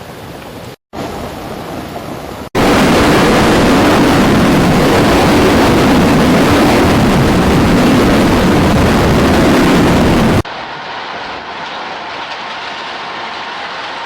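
Steady rushing noise spliced from several clips with abrupt cuts: a moderate rush, a brief dropout under a second in, a much louder rush starting about 2.5 s in and lasting about eight seconds, then a quieter, duller rush.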